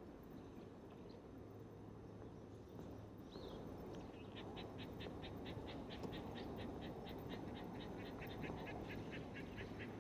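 A small animal calling: a rapid, even series of short, high-pitched calls, about four to five a second, starting about four seconds in and going on steadily, over a low steady background noise.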